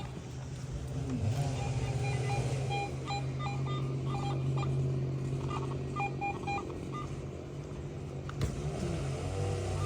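Metal detectors giving short beeping target tones at several pitches, over a steady low rumble.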